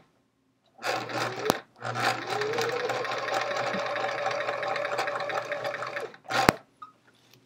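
Domestic sewing machine stitching in short runs while chain-piecing half-square triangles: a brief run, then a longer run with the motor's whine rising as it speeds up and then holding steady, then a last short run. A sharp click comes between the first two runs and another at the end of the last.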